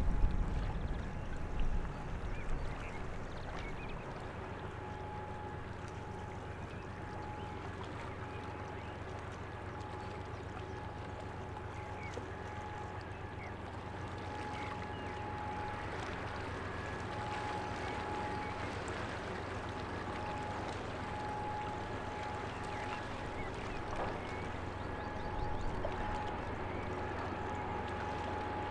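Oil/chemical tanker passing: a steady low hum from its machinery with a thin constant whine above it. Some low buffeting in the first couple of seconds.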